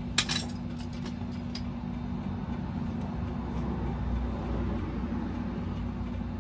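Truck engine idling steadily under the cab, with one sharp metallic clink near the start.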